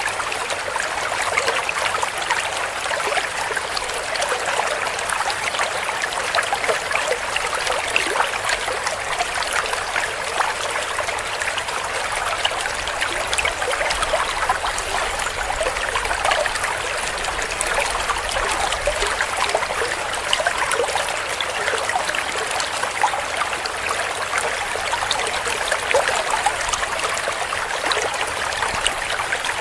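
Shallow stream running and gurgling over stones, a steady babble of small splashes and trickles.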